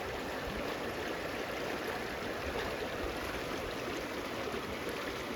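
Creek water rushing steadily, an even noise of flowing water with no pauses.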